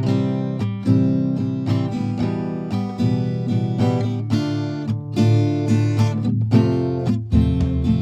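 Background music: strummed acoustic guitar, starting abruptly.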